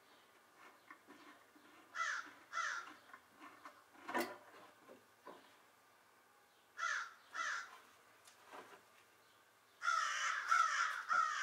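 A bird calling in short pairs of falling calls, about two seconds in and again about seven seconds in, then a longer run of calls near the end. A single sharp knock comes about four seconds in.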